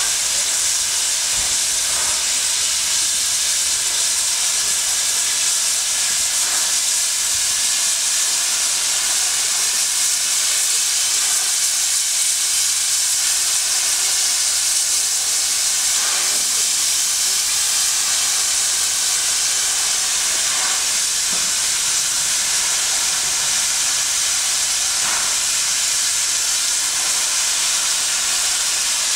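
NSWGR 38 class 4-6-2 Pacific steam locomotive 3801 standing in steam, with a loud, steady hiss of escaping steam. Faint pulses come through about every four to five seconds.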